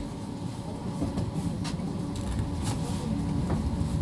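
Cabin noise of a PESA Fokstrot low-floor tram: a steady low rumble with a few scattered clicks and knocks, swelling slightly near the end.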